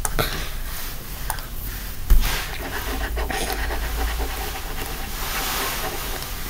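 Breathing close to the microphone over a steady hiss, with one knock about two seconds in.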